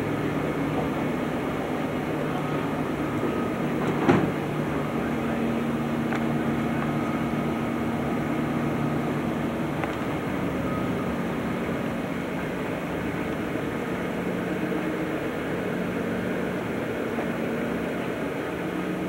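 Passenger elevator running: a steady mechanical hum and rumble with a few held tones that change pitch now and then, and one sharp knock about four seconds in.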